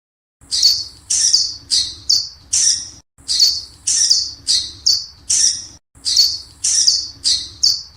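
Bat sound effect: short, high-pitched squeaks, repeated in three near-identical runs of about five squeaks each, over a faint low hum.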